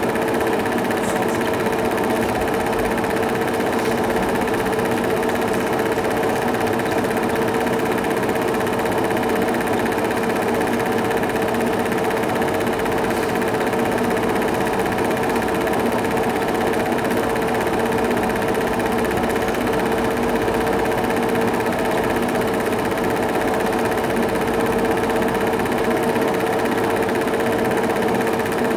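Film projector running: a steady mechanical hum and whirr with a constant pitch that does not change.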